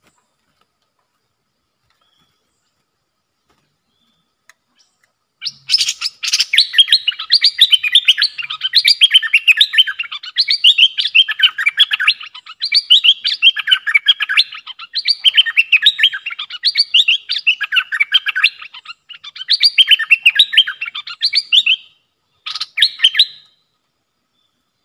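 Bulbul singing a fast, chattering run of notes that starts about five seconds in and goes on for over fifteen seconds, with a brief break near the end before a short final phrase.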